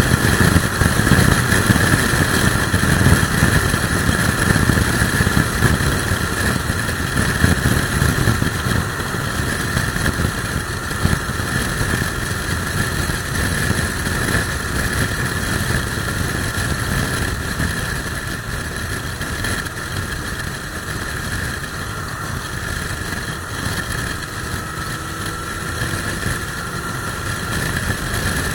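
Motorcycle riding at speed: steady engine and road noise under a heavy rush of wind on the microphone, easing slightly over the stretch.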